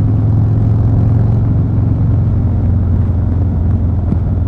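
Harley-Davidson Fat Boy 114's Milwaukee-Eight 114 V-twin with Vance & Hines Eliminator 300 exhaust running at a steady cruise: an even, deep rumble.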